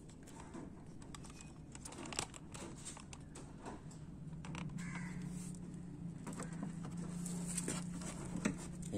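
Scattered clicks and rustling of plastic as a Perodua Myvi's wheel-arch liner is pulled back and the fog lamp cover's side clips are pressed to release them. A steady low hum comes in about halfway.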